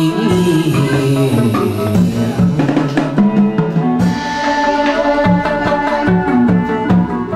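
Chầu văn ritual music: barrel drums beating a regular rhythm under a melody from the accompanying instruments, with a held higher note coming in about halfway.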